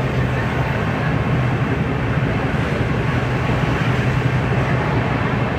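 Passenger train coach running at speed: a steady rumble of wheels on the rails, heard from the open coach doorway.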